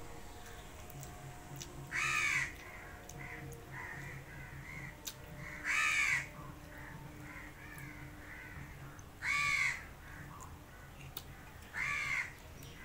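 A bird calling loudly four times, about three to four seconds apart, each call about half a second long, with fainter calls in between.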